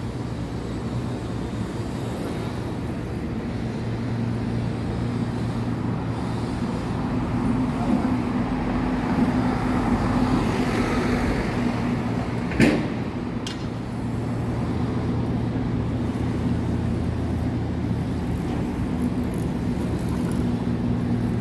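Downtown street noise of traffic and construction: a steady low engine hum with vehicles passing, swelling as a box truck goes by about halfway through. A sharp knock comes a little past the middle.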